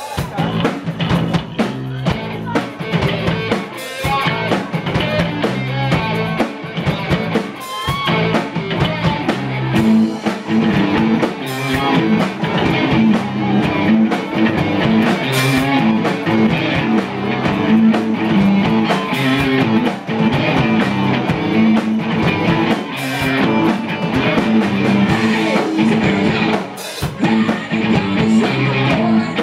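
Rock band playing live, with electric guitars, bass guitar and drum kit, loud and continuous.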